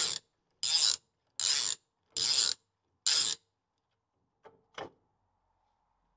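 Socket ratchet wrench clicking in five short strokes, about one every three-quarters of a second, undoing the top swivel pin bolts on a Land Rover Series 2 front axle swivel housing, so the shims under the pin can be taken out to set the preload. Two light clicks follow about four and a half seconds in.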